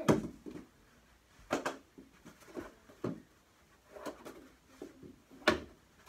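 Plastic mini hockey sticks and ball knocking during a knee hockey game: scattered sharp clacks, the loudest about five and a half seconds in.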